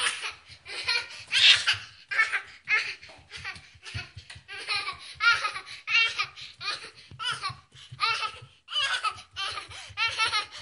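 A toddler laughing very hard: one high-pitched belly laugh after another, with barely a pause between bursts.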